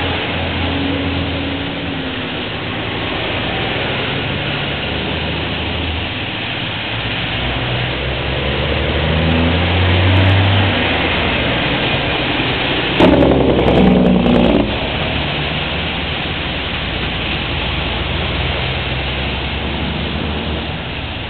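Heavy trucks and cars passing on a wet road: steady tyre hiss with diesel engine rumble that swells about ten seconds in as a semi-truck tractor goes by. About thirteen seconds in, a sudden loud blast lasts a second and a half, then cuts off.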